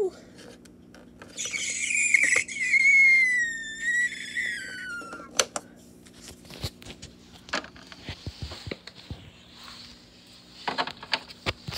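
A loud, high-pitched vocal squeal of about four seconds that wavers and glides downward in pitch, used as a time-travel sound effect. It is followed by scattered clicks and rustling as the toy figures are handled close to the microphone.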